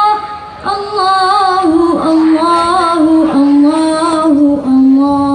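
Girls' voices singing an Islamic sholawat melody together through microphones and a PA, in a wavering, ornamented line. There is a short break just under a second in, and the phrase settles into a long held note near the end.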